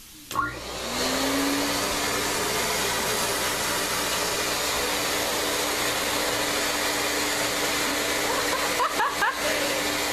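Vacuum cleaner switched on about a third of a second in, its motor whining up in pitch over the first second or so, then running steadily. A few short high squeaks come near the end.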